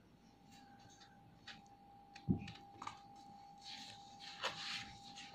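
Pages of a Byju's maths book being turned and handled: faint paper rustling with a few light clicks and one dull thump about two seconds in, the rustle growing near the end. A faint steady high hum lies underneath.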